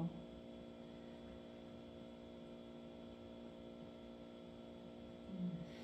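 Steady electrical hum made of several evenly spaced tones. A brief low sound comes near the end.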